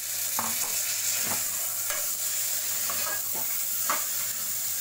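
Soaked black chickpeas sizzling as they fry in hot oil and spices in a pressure cooker, with a spatula scraping and stirring them through the pot about once a second.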